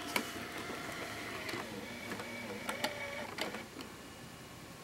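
1986 Magnavox VHS camcorder's tape transport running its motors to load and tension the tape, a faint wavering whir with sharp mechanical clicks every second or so.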